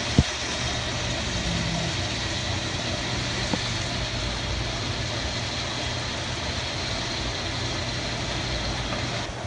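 Steady machine hum and hiss of aquarium pumps and filtration running, with one sharp click just as it begins and a faint tick about three and a half seconds in.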